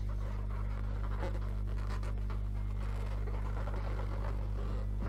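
Steady low hum with faint irregular crackle and rustling over it.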